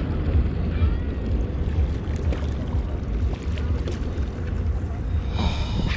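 Wind buffeting the microphone in a steady low rumble, with water moving around a small open boat.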